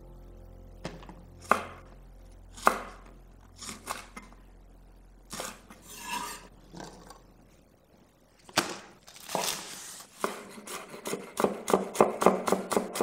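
Chef's knife cutting on a wooden cutting board: a few separate strokes through sliced red chilies, then from about ten seconds in a quick, even run of chops, roughly four a second, dicing scallion whites.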